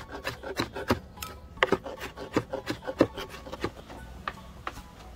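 Kitchen knife chopping diced conch meat on a cutting board: quick, irregular knocks of the blade against the board, several a second, thinning out near the end.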